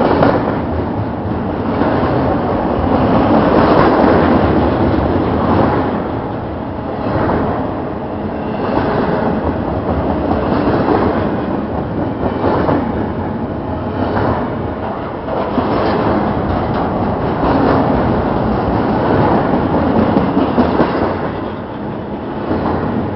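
Double-stack intermodal freight train's container well cars rolling past close by: a steady rush of steel wheels on rail that swells and eases in waves, with clicking over the rail joints.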